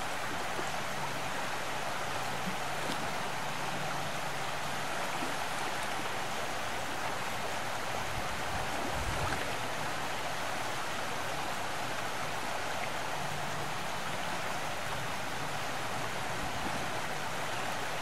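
Steady rushing outdoor ambience, an even hiss with no distinct events.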